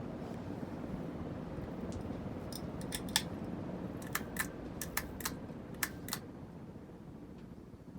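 Hunter Beacon Hill ceiling fan running on high speed, a steady whoosh of moving air and motor noise that eases off near the end. Over the middle few seconds a quick run of about ten sharp, light clicks sounds over it.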